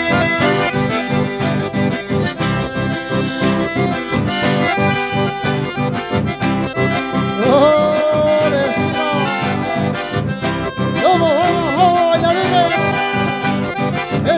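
Live accordion-led dance music with a steady beat. About halfway through, a melody line holds a long note that slides in pitch.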